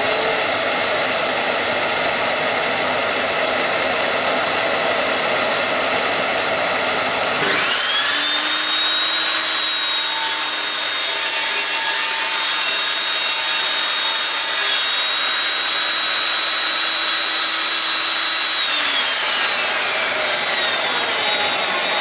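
Shop vac dust extractor running steadily. About seven seconds in, the Evolution Rage 5-S table saw's 1800 W motor starts with a rising whine and runs at speed; near the end it is switched off with the stop button and the whine falls away as the blade winds down.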